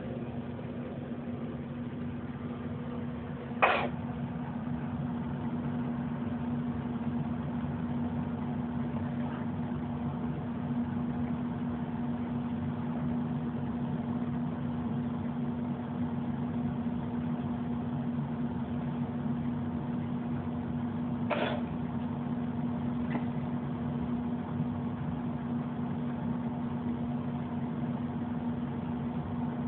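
A steady low mechanical hum, with two short sharp clicks: a louder one a few seconds in and a fainter one past the middle.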